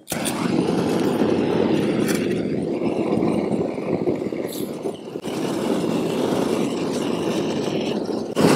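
Propane roofing torch burning with a steady rushing noise, its flame played into an open seam of a torch-down roof to dry out the wet felt. It gets louder near the end.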